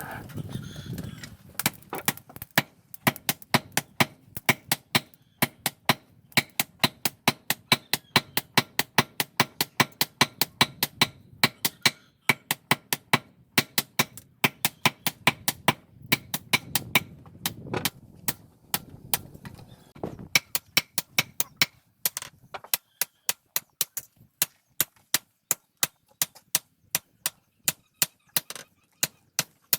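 Hand hammer striking steel on an anvil in a steady run of sharp blows, about three a second, forging the chisel. A low rumble runs underneath and stops about two-thirds of the way through.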